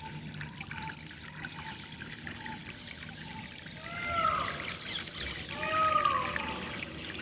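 Water trickling and splashing steadily, with birds calling over it: a row of short repeated notes over the first few seconds, then two louder arching calls about four and six seconds in.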